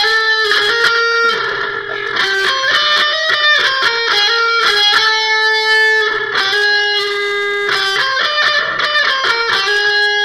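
Electric guitar playing a single-note melody, long held notes stepping from one pitch to the next.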